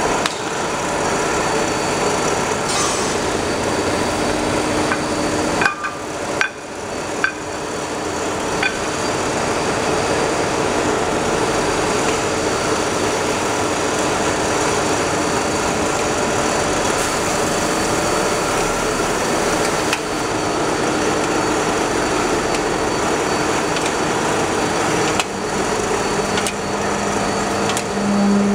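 Automatic aluminium-can beer canning line running: empty cans clattering along the conveyors over the steady noise of the machinery, with a few sharper knocks and a low hum coming in near the end.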